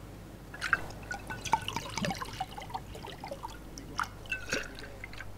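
Liquor poured from a bottle into a glass tumbler, splashing and glugging in short irregular blips for a few seconds. A couple of sharp knocks follow near the end.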